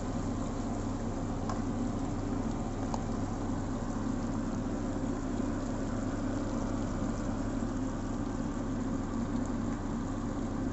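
Sardines and cabbage frying in a wok, a steady sizzle over a constant low hum from the stove area, with a couple of faint clicks of the nylon spatula in the first few seconds.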